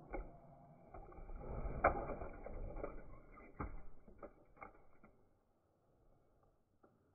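Small die-cast toy cars pushed by hand across a carpet and knocked together: a series of sharp clicks and knocks over a rustling scrape, the loudest knock about two seconds in, dying away after about five seconds.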